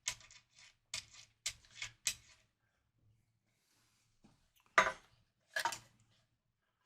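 Small metal parts clicking and clinking as a hex nut is run down onto a Fender locking tuner's threaded bushing: a quick series of light clicks, then two sharper knocks about five and six seconds in.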